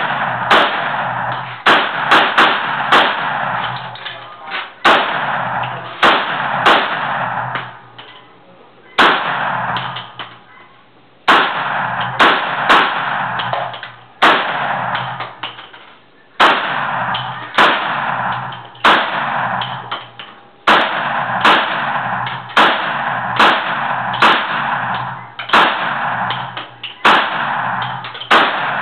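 AK-47-type rifle firing about two dozen shots, mostly single shots with some quick doubles and short strings a few seconds apart. Each crack rings on in the brick-walled range lane.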